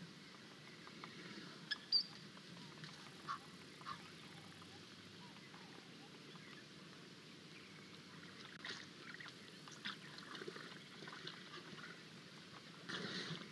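Faint outdoor ambience at a muddy waterhole: a steady low hiss with scattered short high chirps and clicks, and a brief louder scuffling noise near the end.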